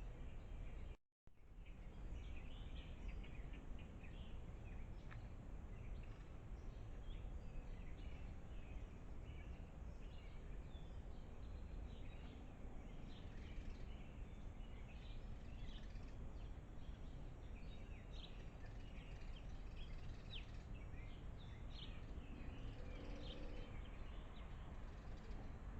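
Outdoor ambience: many short bird chirps scattered throughout over a steady low background rumble, with the audio dropping out completely for a moment about a second in.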